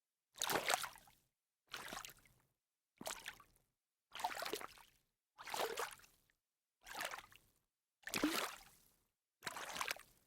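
A sneaker stepping into shallow water, eight separate splashy steps each fading out, with silence between them, a little over a second apart.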